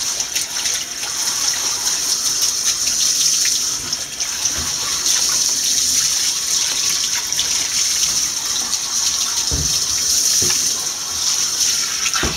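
Handheld shower sprayer running water onto a cat's wet fur in a bathtub during a rinse: a steady, loud rush of spray.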